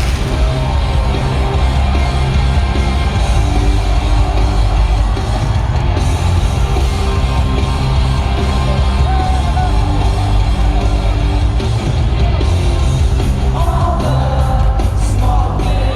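Loud rock music with singing, steady throughout with a heavy low end.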